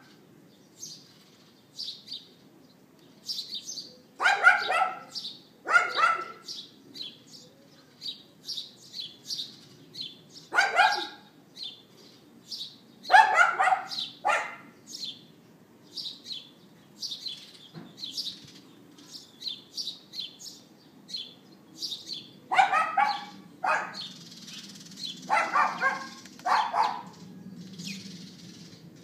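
Dog yapping: about nine sharp barks, singly or in quick pairs, at uneven gaps of a few seconds. Small birds chirp in between.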